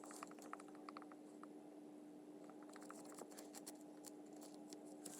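Near silence: faint room tone with a low steady hum and scattered faint ticks.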